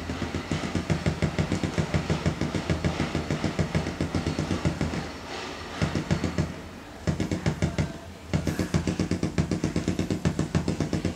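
Music with a fast, even, bass-heavy beat played through a wooden speaker cabinet driven by a TPA3116D2 class-D amplifier board. It drops away briefly about five seconds in, and again for about a second around seven seconds in.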